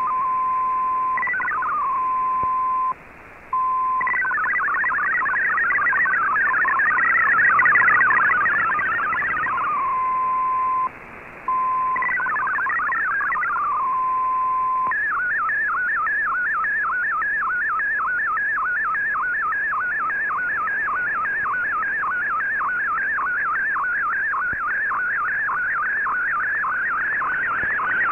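Shortwave radio broadcast of MFSK digital data heard through the receiver's audio. A steady tone near 1 kHz gives way about four seconds in to a warbling multi-tone data burst carrying a text caption, then short falling glides. From about halfway the signal becomes a fast, evenly repeating sweep: an MFSK colour picture being sent line by line. The signal drops out briefly twice.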